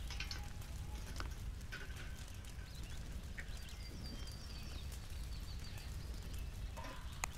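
A metal grill set down over a wood fire on stones, giving a few scattered light clinks and knocks over a steady low outdoor rumble, with a sharper clank near the end.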